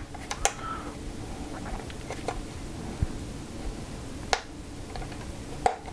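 Hands handling a Safariland ALS plastic holster: a few light, separate clicks and taps, the sharpest about four seconds in, as the retention mechanism is being fitted back together.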